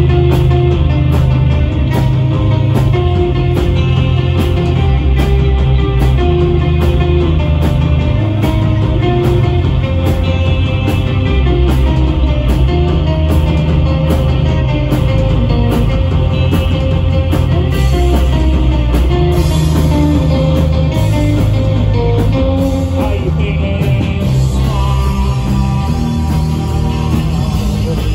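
Live rock band playing loud: semi-hollow electric guitar, bass guitar and drum kit, with a steady drum beat.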